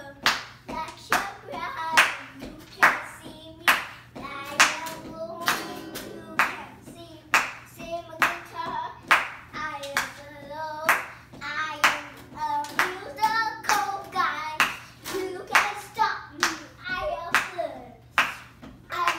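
A young child singing along over a steady clapped beat, about one clap a second with extra claps in between.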